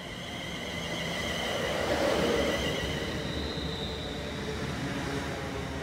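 Class 360 electric multiple unit running past close by. The sound swells to a peak about two seconds in and then eases, with a rumble under several steady high-pitched whining tones.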